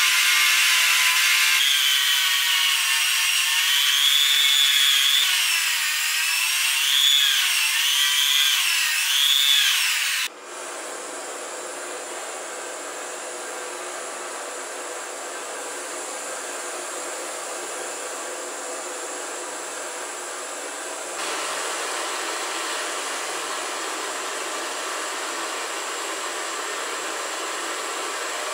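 Rotary tool with a wire wheel whining at high speed, its pitch wavering as the wheel is pressed on and eased off a rusty steel screw. It cuts off about ten seconds in, giving way to the steady hiss of a small handheld gas torch playing its flame on the screw, which grows a little louder about twenty seconds in.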